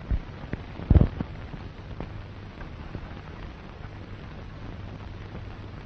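Hiss and low hum of a worn 1964 film soundtrack, with a few clicks and two low thumps, the louder about a second in.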